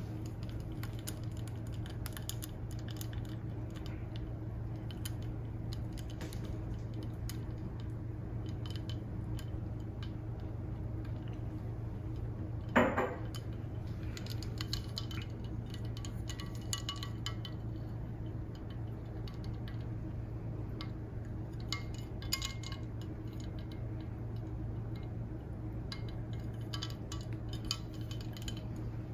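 Light clinks and taps of a double-walled glass mug and its stainless-steel tea infuser being handled, over a steady low hum. One louder, short sound stands out about thirteen seconds in.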